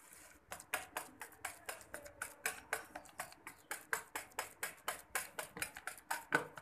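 Wire hand whisk beating softened milk cream in a plastic box, clicking quickly and evenly at about six strokes a second. The cream is being mashed smooth, the first stage of churning it into butter.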